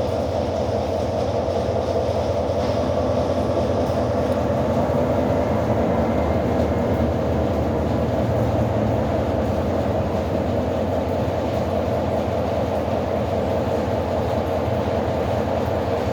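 Freight train of Eas open wagons rolling past, a steady rumble of wheels on rails.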